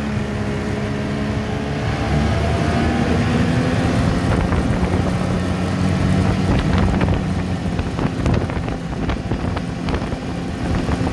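Polaris snowmobile engine running as the sled rides along a packed-snow trail, its pitch rising a little in the first few seconds as it picks up speed, with wind buffeting the microphone and scattered short knocks.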